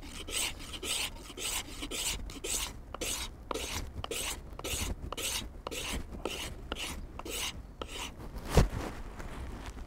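Mora knife blade scraping factory lacquer off the wooden handle of a Juco 400 g hatchet, in quick repeated strokes about two or three a second, with one sharper knock near the end.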